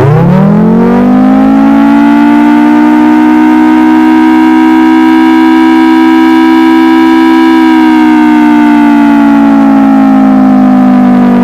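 Civil defense warning siren winding up quickly from silence to a loud, steady two-note wail, then starting to slide slowly down in pitch as it winds down after about seven seconds.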